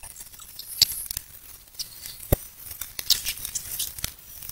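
Plastic courier bag and bubble wrap crinkling and tearing as a parcel is unwrapped by hand, in irregular crackles with a couple of sharp clicks.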